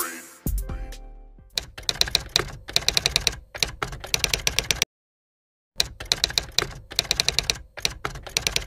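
Typewriter typing sound effect: two runs of rapid key clacks with a short silent gap between them. The tail of an intro music sting fades out at the start, with a low thud just after.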